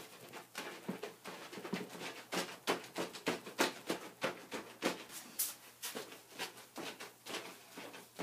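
Soapy wet hands patting and rubbing wet wool roving through a plastic mesh: a quick, irregular run of short wet pats, a few a second. This is the agitation stage of wet felting, pressing the fibres so they mat together.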